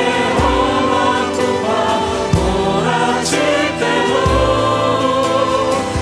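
Korean worship song: singers with a band, a low drum beat about every two seconds and a cymbal crash about three seconds in.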